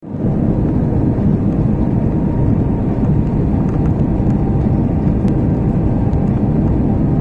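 Steady low rumble of an Airbus A321 cabin on the landing approach: jet engine and airflow noise heard from a seat over the wing.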